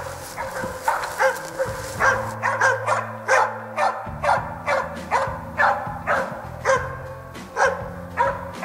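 Moose-hunting dog bay-barking in a steady rhythm of about two barks a second: the stand bark (ståndskall) that signals a moose held at bay. Background music plays underneath.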